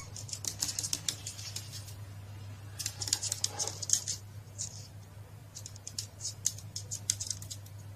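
Clusters of rapid, light high-pitched clicking and scratching over a steady low hum. The clicks come in bursts of about a second each, with short gaps between them.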